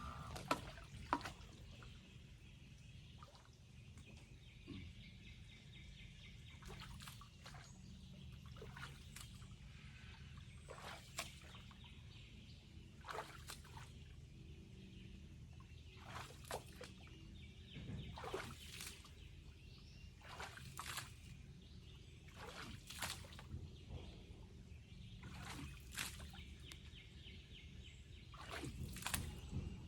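Faint water trickling and splashing, with irregular sharp splashes every second or two over a low steady rumble.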